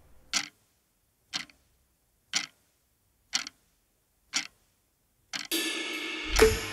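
Wall clock ticking, one crisp tick a second, six times. Near the end, music with sustained tones comes in, with one loud hit just before it ends.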